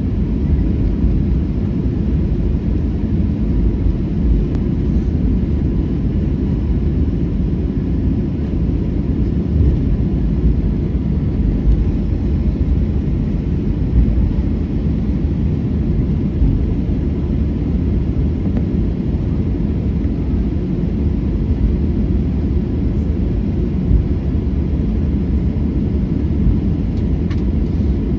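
Inside the cabin of a Boeing 737-800 on its takeoff roll: the CFM56-7B engines at takeoff thrust and the wheels on the runway make a steady low rumble, with a faint steady engine tone above it.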